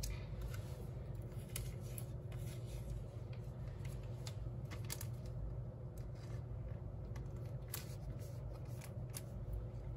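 Trading cards being handled and shuffled: scattered light clicks and scrapes of card stock over a steady low hum.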